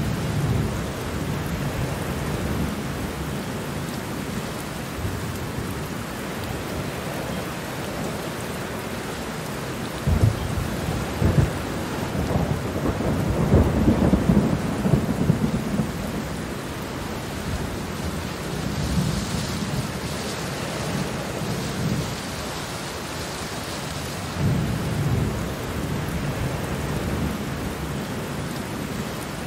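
Steady heavy rain with rolling thunder: a long, loud rumble that builds about ten seconds in and dies away after about six seconds, with fainter rumbles near the start and later on.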